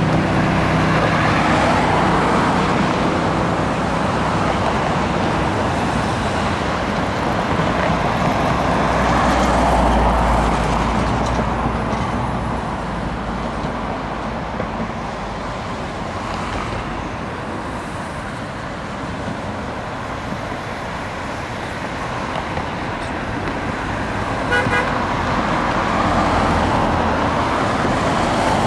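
Road traffic on a bridge: cars passing one after another, their tyre and engine noise swelling and fading every several seconds. A short car horn toot sounds about three quarters of the way through.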